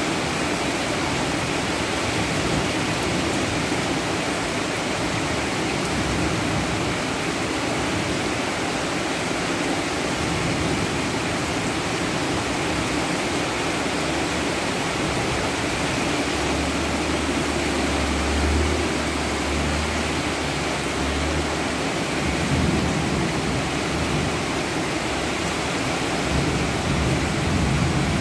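Heavy rain falling steadily, a dense even hiss. A low rumble of distant thunder rolls in a little past halfway and lasts several seconds.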